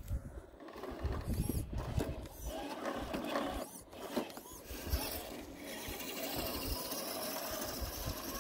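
Axial SCX10 II RC crawler's electric motor and gearbox whining as it crawls over rocks, with scraping and ticking from tyres on stone and gravel. The whine grows steadier about halfway through.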